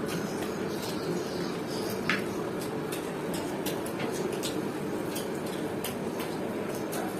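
Two people eating by hand: irregular short clicks and smacks of chewing and of fingers tearing fried luchi and dipping it into chicken curry on plates, over a steady low background hum.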